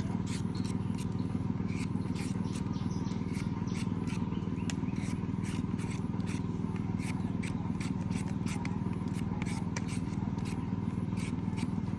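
A steady low hum with frequent short clicks and scrapes, two or three a second.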